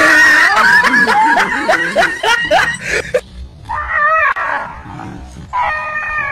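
A dog barking and yelping in quick, high cries, most of them in the first three seconds, agitated by a stuffed toy tiger pushed at it on a stick.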